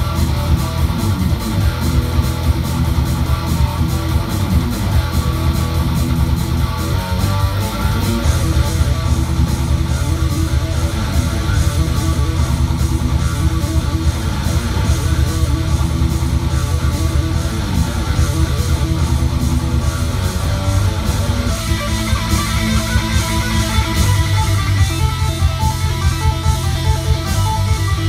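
Electric guitar playing an instrumental riff with fast, even picking over a steady low chug. Late on, the part moves to higher repeated notes.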